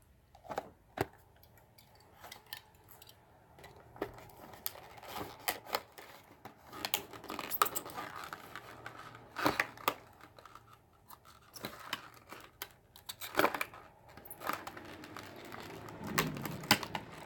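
A toy car's plastic blister pack and card being cut and torn open: irregular crinkling of stiff plastic and cardboard with scattered clicks and scrapes.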